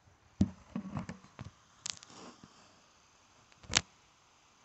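Knocks and clicks of handling on a wooden shooting bench: a quick run of knocks in the first second and a half, then two sharp clicks, one near the middle and the loudest near the end.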